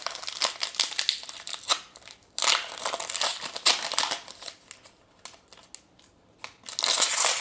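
Foil Pokémon booster pack wrappers crinkling and crumpling in the hands, among many small clicks and rustles of handling. Louder crinkles come about two and a half seconds in, again near four seconds, and a loud one near the end.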